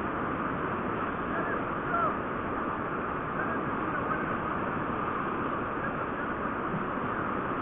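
Floodwater rushing across a road: a steady, even rush of flowing water.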